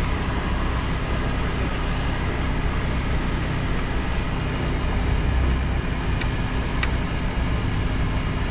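Steady low background rumble with no clear pitch, with a faint tick or two about seven seconds in.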